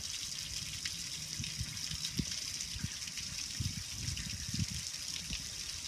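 Water pouring and splashing down over the lid and side shelves of a Char-Broil gas grill: a steady hiss of spray and streaming water, with irregular low thuds underneath.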